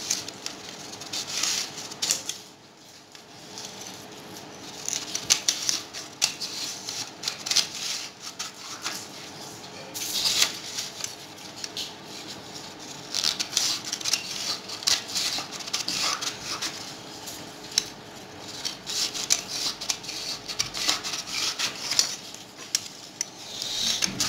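Scissors cutting long strips from a sheet of green paper: runs of quick crisp snips, with short pauses between cuts.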